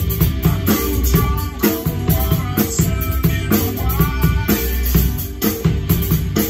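A Tama drum kit played along to a recorded rock song, with a steady beat of drum and cymbal hits over the band's backing track.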